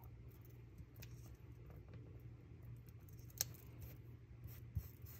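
Faint handling of paper stickers: fingertips pressing and sliding stickers onto a planner page, with a sharp tick a little past the middle and a couple of soft taps near the end, over a low steady hum.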